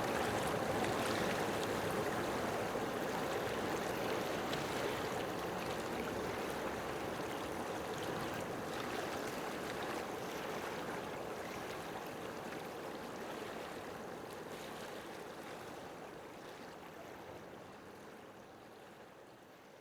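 Steady rushing noise with no clear pitch, like running water, fading out gradually over the last several seconds.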